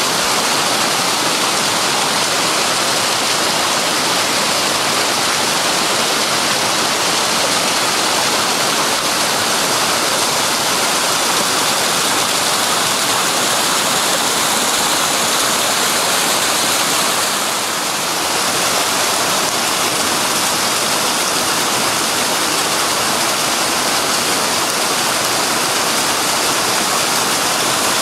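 Loud, steady rush of pouring water, easing briefly about two-thirds of the way through.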